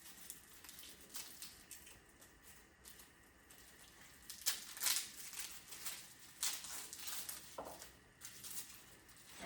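Faint handling of a garlic bulb: dry papery skin rustling and crackling, with a few short sharp crackles or knocks about halfway through.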